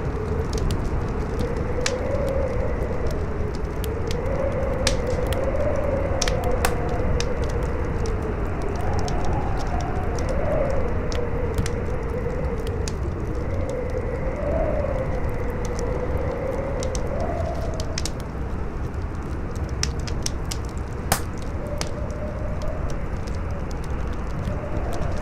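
A crackling fire, with scattered sharp pops and one louder pop about 21 seconds in, over a strong howling wind whose moaning tone wavers up and down above a deep rushing noise.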